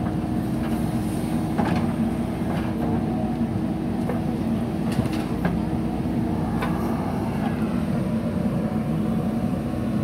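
JCB 3DX backhoe loader's diesel engine running steadily while the backhoe arm works, with a few short knocks over it.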